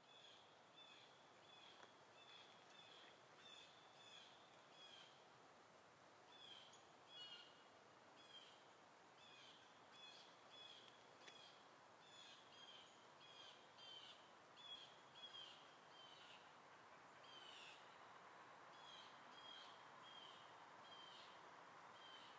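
Faint bird chirping: short high notes repeated about twice a second, over a steady faint background hiss.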